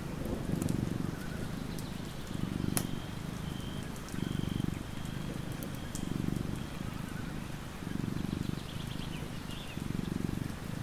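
Sleeping tabby cat purring, a low rumble that swells and fades in a steady rhythm about once every two seconds.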